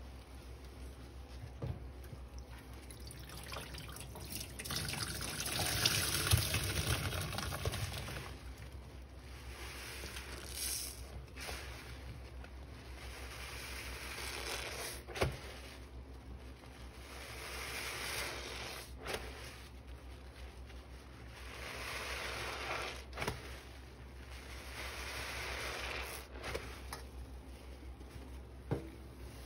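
Wet scrub sponges being squeezed and rubbed in soapy water in a sink, in repeated squeezes of a few seconds each, water and suds running and dripping out; the loudest is about six seconds in, with a few sharp clicks between squeezes.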